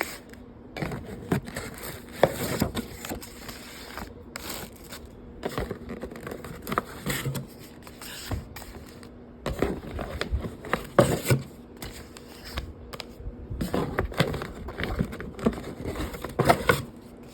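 Opening a mailed package of printed photos and handling the prints: irregular scraping, crinkling and paper-shuffling noises with short sharp clicks.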